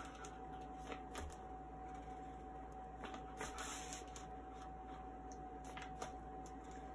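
Faint rustling and light clicks of a woven feed sack being handled and measured, with a slightly louder rustle about three seconds in, over a steady faint hum.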